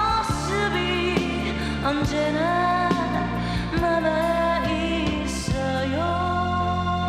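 A sung pop ballad with a steady bass line underneath. The voice holds a long note near the end.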